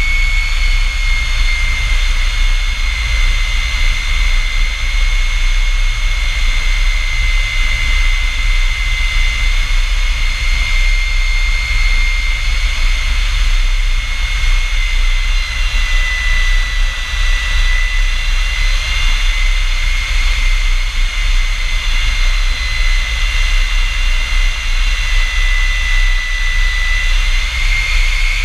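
A North American F-100 Super Sabre's Pratt & Whitney J57 turbojet running steadily. Its high whine sags slightly in pitch in the second half and comes back up near the end, over a steady low rumble.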